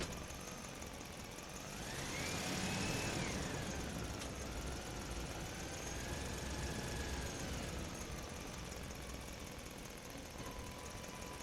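Car engine running with a low rumble. About two seconds in its pitch climbs, then it drops back and wavers for several seconds. It starts to climb again at the very end.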